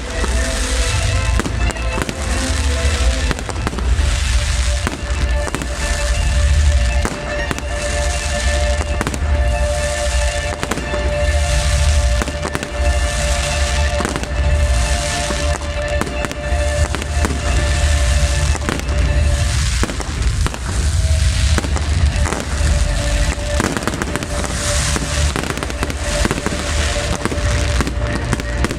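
Fireworks display: a continuous run of booming shell bursts and crackling, over music with long held notes.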